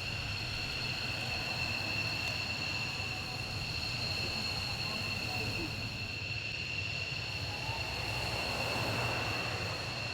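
Distant jet engine noise: a steady low rumble with a steady high-pitched whine over it.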